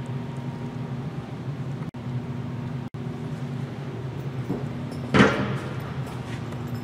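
Steady low hum of a large indoor exhibition hall, cutting out for an instant twice. About five seconds in there is a short, loud bang-like sound.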